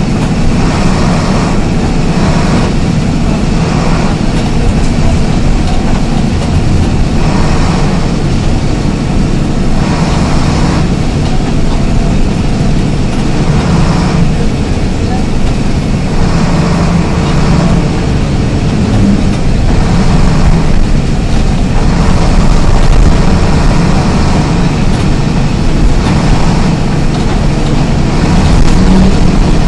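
Isuzu MT 133RHD bus engine running with a loud, steady low drone while the bus is under way.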